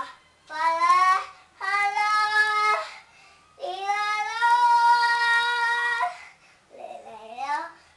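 A young boy singing with no accompaniment, in sustained sung phrases. The longest note is held for about two and a half seconds, and a short phrase near the end swoops down and back up in pitch.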